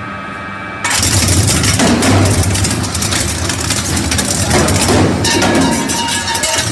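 Industrial twin-shaft shredder's toothed rotors grinding and crunching material: a loud, harsh crackle over a heavy low drone that starts abruptly about a second in. Before it, a steady humming tone.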